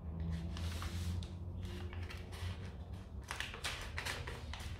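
Scissors cutting through a sheet of pattern paper: the paper rustles as it is handled, then a quick run of crisp snips near the end.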